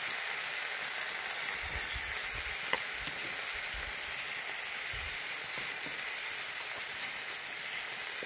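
Beef pieces, tomato and onion sizzling and frying in a pan, the ground chipotle sauce just added. A few soft low knocks come about two and five seconds in.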